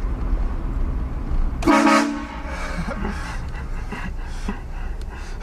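Train horn gives one short, loud blast about a second and a half in, over a low vehicle rumble that drops away with it.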